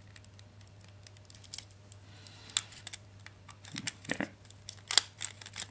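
Scattered light clicks and taps of hard plastic as a PS3 controller's shell and replacement battery are handled and fitted by hand, coming more often in the second half, with the sharpest click about five seconds in.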